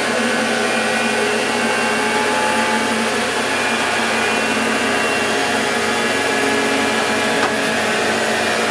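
Van de Graaff generator running: a loud, steady motor-and-belt whir, with a single sharp click about seven and a half seconds in.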